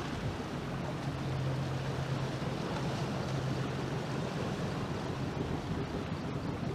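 Jet boat engine running steadily at low speed, a low hum that is strongest between about one and four seconds in, over the rush of river water and some wind on the microphone.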